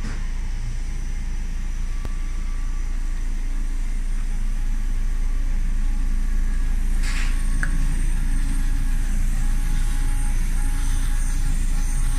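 Large laser engraving machine running with a steady low hum that grows slightly louder partway through. A short hiss comes about seven seconds in, and faint shifting whining tones appear near the end as the laser head moves over the coir mat.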